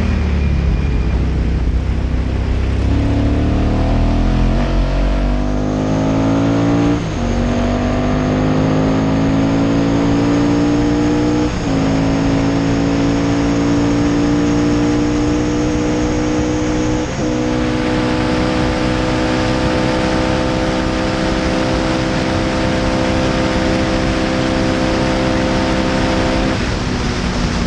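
Onboard sound of a Ducati-engined classic racing sidecar accelerating hard, its engine pitch climbing through the gears with three quick upshifts, then the throttle closing near the end. Wind rushes past the microphone throughout.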